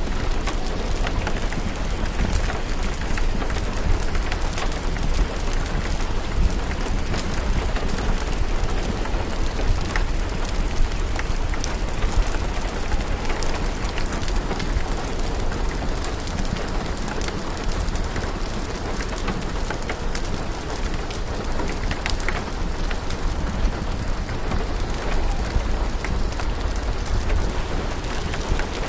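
Steady rain over a low rumble, mixed with frequent small crackling pops of a wood fire.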